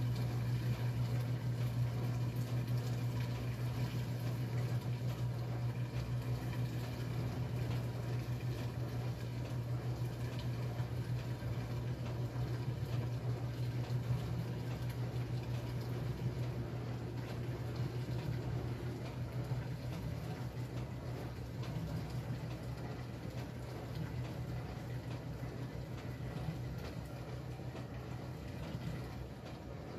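1957 Blackstone 350 automatic washer running with a steady low motor hum and water sounds from the tub while the agitator is at rest. The hum eases slightly near the end.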